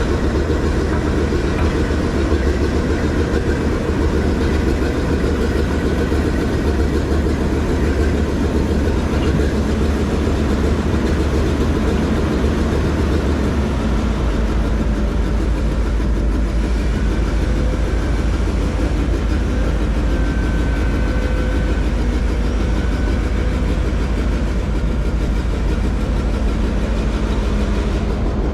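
Hydraulic excavator's diesel engine running steadily as a low drone, dropping slightly in pitch about halfway through.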